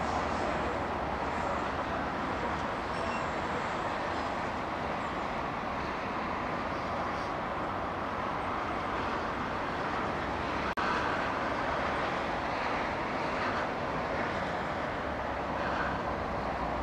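Steady outdoor background noise, an even hiss-like rumble with no distinct source, broken by a single short click and momentary dropout about eleven seconds in.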